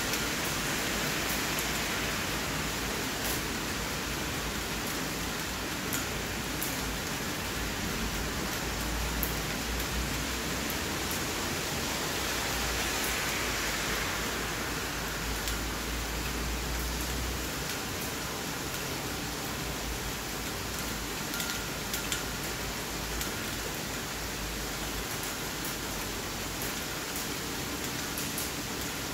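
Steady rain falling on open ground and pavement, an even hiss with a sharp tick now and then. A low rumble comes and goes underneath.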